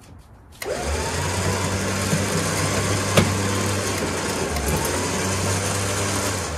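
Electric winch motor running as it pays out rope, letting a zero-turn mower down the loading ramps. It whines up to speed about half a second in, runs steadily with one sharp click near the middle, and winds down at the end.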